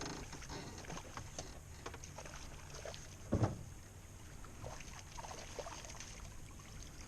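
Handling noises in a small fishing boat: faint scattered clicks and one dull thump about three and a half seconds in, over a quiet background.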